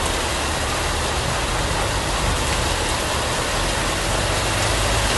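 Heavy rain and rushing floodwater: a steady hiss of water, with a low rumble underneath.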